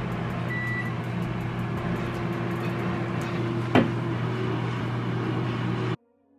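A steady low mechanical hum. A brief high tone sounds about half a second in, and a quick falling squeak, the loudest moment, comes near four seconds. The hum cuts off abruptly near the end.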